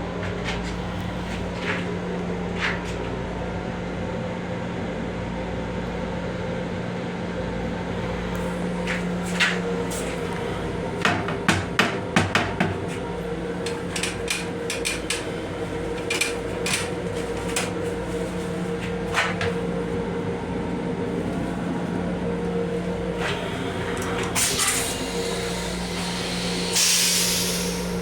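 Steady electrical hum and rumble inside a Long Island Rail Road M7 railcar restroom, with scattered sharp clicks and knocks from fittings and a brief hiss near the end.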